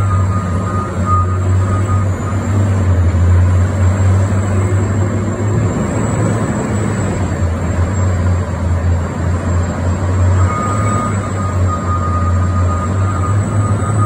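Diesel engine of a wheel loader working bulk ore in a steel cargo hold: a steady, heavy low drone. A thin high whine comes and goes near the start and again in the last few seconds.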